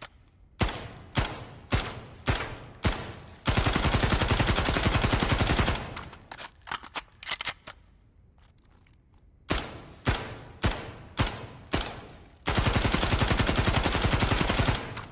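XCR assault rifle gunfire: a string of single shots about half a second apart, then a long full-auto burst; after a pause with faint clicks, another string of single shots and a second long full-auto burst.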